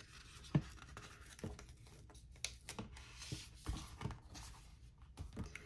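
Faint handling of a sticker book and paper planner pages: soft paper rustling with a scatter of light taps and clicks.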